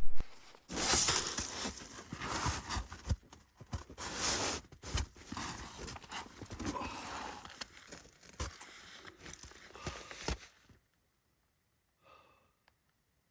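Irregular rustling, scraping and crunching with a few sharp knocks. It cuts off abruptly about eleven seconds in, leaving near silence.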